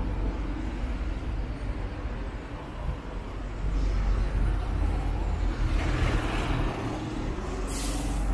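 Street traffic with a heavy vehicle running close by, its engine rumble growing louder a few seconds in. Near the end comes a short, sharp hiss of air brakes.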